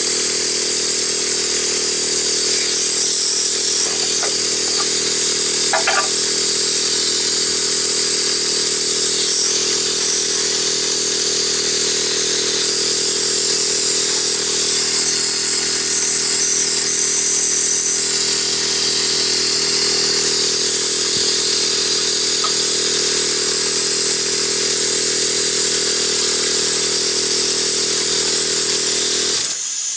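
Converted 12-volt air compressor running steadily, a motor hum under a loud hiss of escaping air, and stopping just before the end. The compressor is staying unloaded, so its air vents instead of building pressure in the tank.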